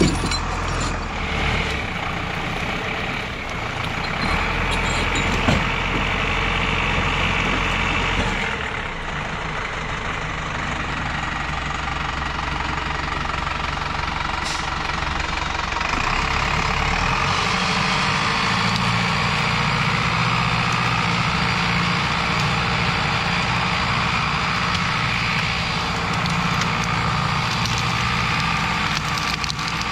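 Zetor Proxima 90 Plus tractor's diesel engine running steadily as it skids logs, its note shifting about 8 seconds in and again near 17 seconds. A couple of short knocks come near the start.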